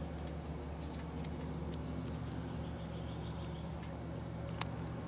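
Faint clicks and rustles of fingers fitting a small white plastic crimp connector onto the end of a red wire, with one sharp click near the end, over a steady low hum.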